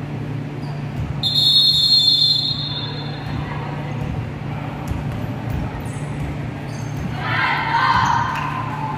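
Referee's whistle blown in one shrill blast of over a second, starting about a second in, over the noise of a basketball game in a gym. Players' shouts rise near the end.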